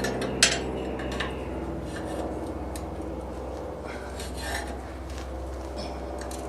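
Steel tools and workpiece clinking and scraping against each other as hot tong parts are handled and adjusted, with one sharp metallic clink about half a second in. A steady low hum runs underneath.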